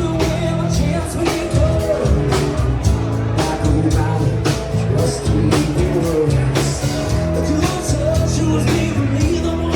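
A live band playing a song: a singer over a steady bass line and regular drum hits.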